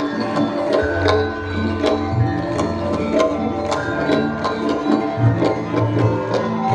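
Traditional Javanese dance music in gamelan style, with sustained metallic pitched notes over a low bass pattern and drum strokes a few times a second, played over outdoor loudspeakers.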